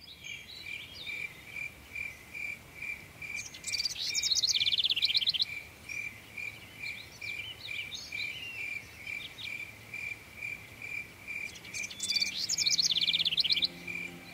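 Insect chirping steadily, about two chirps a second, while a bird sings in two bursts of rapid trilled notes, the loudest parts. Low instrument notes come in near the end as music begins.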